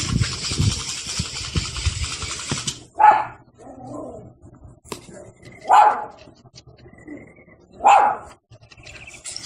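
A dog barking three times, a single bark every two to three seconds, after a few seconds of steady rustling noise.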